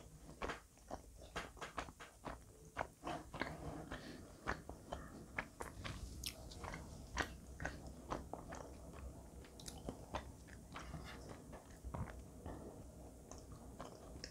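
A person chewing food close to the microphone: an uneven run of small crisp clicks and soft crunches from the mouth.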